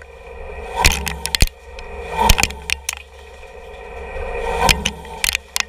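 CNC lathe turning a steel bar with a round chip-breaking insert: a steady machine hum and the hiss of the cut, which swells and fades several times. Irregular sharp clicks come from short broken chips flying off and striking the machine.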